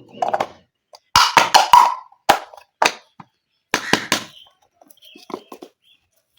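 Small hard plastic toy-kitchen pieces clicking and clacking as they are handled and set down: a quick run of sharp taps about a second in, then single clacks spaced out, fainter near the end.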